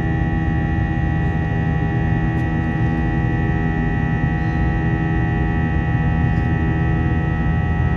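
Steady cabin noise of an Airbus A321 in flight: a low rumble of engine and airflow with a steady high-pitched whine held over it.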